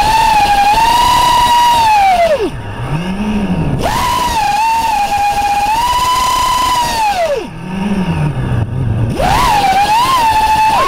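FPV racing quadcopter's brushless motors whining at a high, steady pitch under throttle, dropping away sharply twice as the throttle is cut and climbing quickly back up each time.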